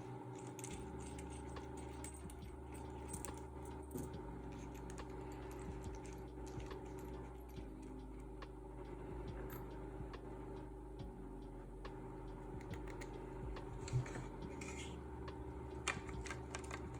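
Faint scattered clicks and taps of small metal parts being handled as a new welding cable panel connector is fitted into the machine's case, over a steady low hum, with a soft knock about three-quarters of the way through.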